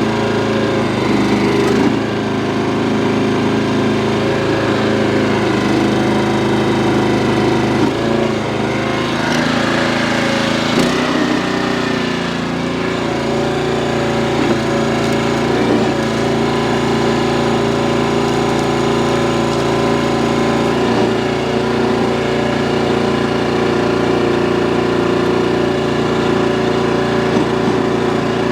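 Small gas engine of a towable backhoe running steadily as it digs, its note dropping and shifting a few times as the hydraulics take load.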